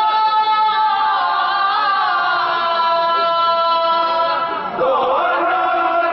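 A group of men singing a naat together without instruments, holding long drawn-out notes. Near the end the voices drop away for a moment, then come back on a new, lower note.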